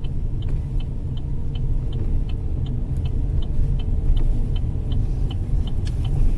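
A car's turn-signal indicator ticking steadily at about three clicks a second, with the right indicator on ahead of a right turn. Under it is the low, steady drone of the engine and road noise inside the moving car.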